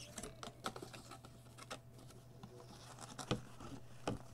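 Cardboard packaging being handled and pulled at: scattered light rustles, scrapes and clicks of card, with a few sharper clicks in the second half.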